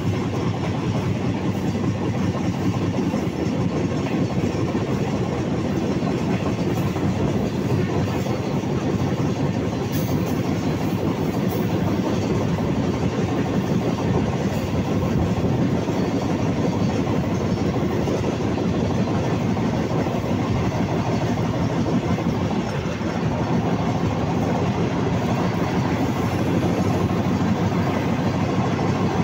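Passenger train running along the track, heard from its open carriage window: a steady rumble of wheels on the rails.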